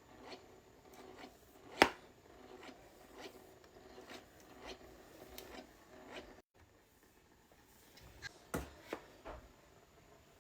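Quiet handling noise from hair being worked through a beach wave curler: faint rubbing with scattered clicks, one sharp click about two seconds in and a few more near the end.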